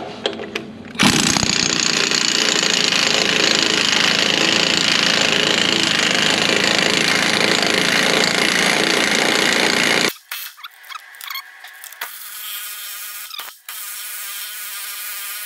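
Pneumatic impact wrench hammering for about nine seconds as it drives a bolt into a dirt- and paint-fouled threaded hole in a dozer's frame, chasing the threads clean. It cuts off suddenly. From about two seconds later to the end the tool spins freely with a steady buzzing whine, with one brief break.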